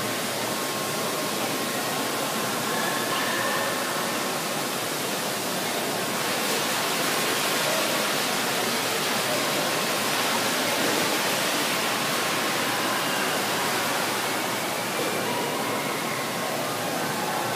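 Steady rushing background noise of a large indoor show hall, with faint, indistinct voices of the crowd now and then.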